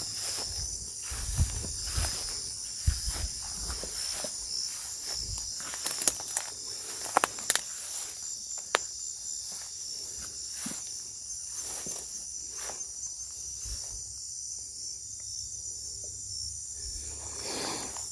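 Steady high-pitched chorus of night insects such as crickets, with scattered rustling and crackling of footsteps through dry brush and a few sharp clicks in the middle.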